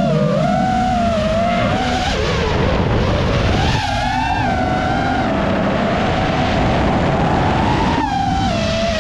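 Racing quadcopter's electric motors and propellers whining, the pitch rising and falling as the throttle changes, over a rush of wind and propeller noise. The sound shifts abruptly about four seconds in and again about eight seconds in.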